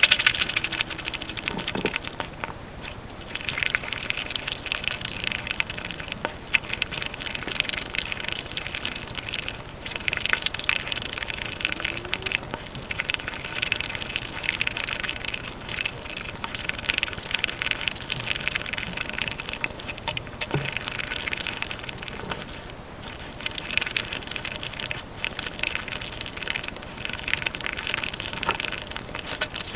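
Close-miked eating sounds played back at five times speed: a dense, continuous run of quick wet chewing and smacking clicks.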